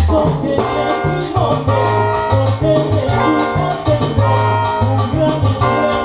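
A salsa band playing live, with a brass section carrying sustained chords over a pulsing bass line and steady percussion.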